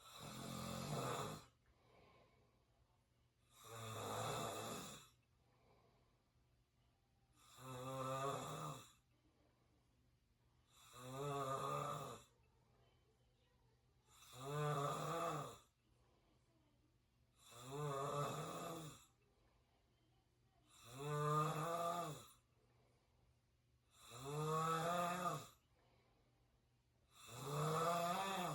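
A person snoring through an open mouth: regular snores about every three and a half seconds, nine in all, each lasting about a second and a half, with quiet breathing in between.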